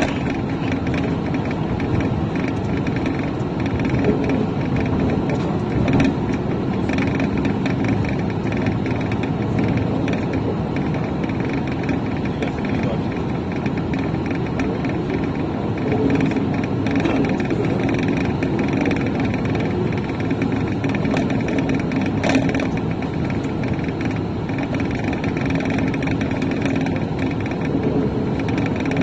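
A car driving along at steady speed: continuous engine and road noise with a faint steady hum, broken only by a few small knocks.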